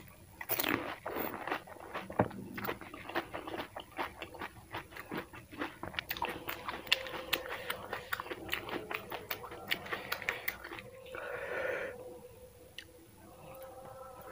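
Close-miked mouth sounds of a pani puri being eaten: crisp shell crunching between the teeth with many sharp crackles, then wet chewing that turns quieter near the end.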